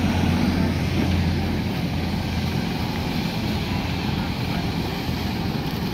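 Tractor diesel engine running steadily under load as a low hum, driving the PTO-powered trolley's axle that pushes the rig along with the tractor's own brakes locked.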